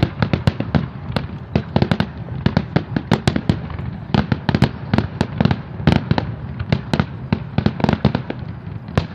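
Fireworks bursting in a rapid barrage, several sharp bangs a second, thinning out near the end.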